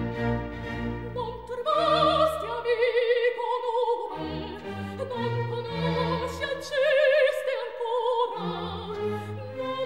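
Soprano singing a late-18th-century opera aria with wide vibrato, accompanied by a string orchestra. The voice comes in about a second and a half in over held low string notes.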